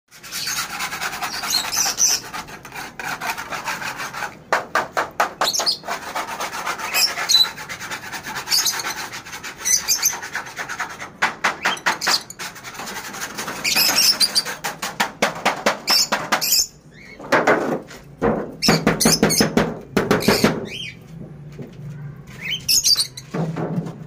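Caged budgerigars and other small pet birds chirping and chattering in bursts of short, high calls. Louder, lower runs of rapid rattling notes come in the last third.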